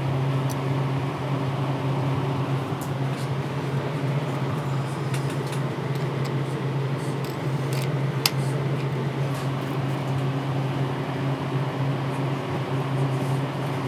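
Steady fan-like mechanical hum, with a few faint light clicks of tweezers and small metal parts as a head comb is fitted onto an open hard drive's head stack.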